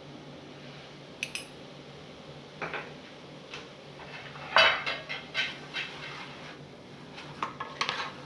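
Cooking utensils and pots clinking and knocking against each other: a string of irregular sharp clinks, the loudest about halfway through, with a cluster near the end.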